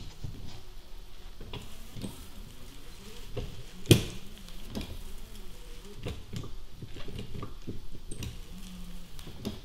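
Windscreen wiper of a VW Golf 6 being pushed along by hand: the blade rubbing over the glass, with small clicks and knocks from the arm and a sharp knock about four seconds in. The mechanic suspects the wiper linkage has gone stiff, its shafts seized by aluminium corrosion, so the wiper motor cannot move it on its own.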